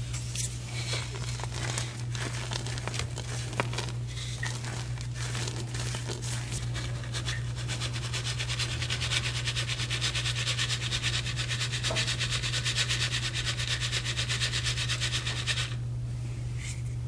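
Crumbled lumps of reformed gym chalk rattling and rasping against a fine stainless-steel mesh sieve as it is shaken to sift out the powder. The shaking starts with uneven clicks and scrapes, turns into a fast, steady rhythm about halfway through, and stops shortly before the end. A low steady hum lies underneath.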